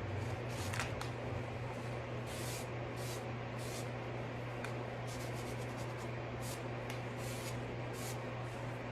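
An unscented baby wipe rubbed over a freshly sanded wooden drawer to clear the sanding dust, a soft swish with each of many short, irregular strokes, over a steady low hum.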